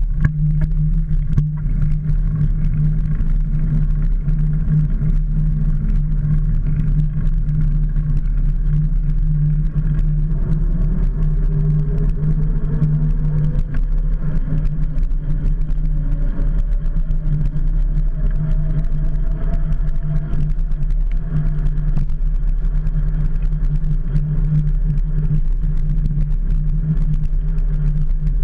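Steady loud wind rush and road rumble on a bicycle's handlebar-mounted camera as the bike rolls along a paved mountain road, with a faint rising tone in the middle.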